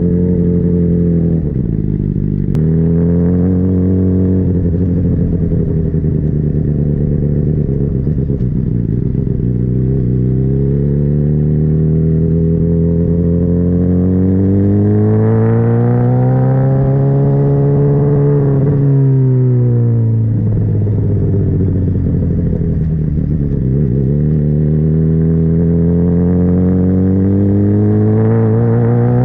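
Motorcycle engine at speed, its pitch climbing slowly as the bike accelerates. It drops briefly about two seconds in, climbs steadily through the middle, falls away two-thirds of the way through as the bike slows, then climbs again toward the end.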